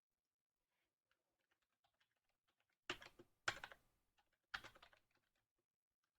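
Typing on a computer keyboard: scattered faint key clicks, with three louder short bursts in the middle.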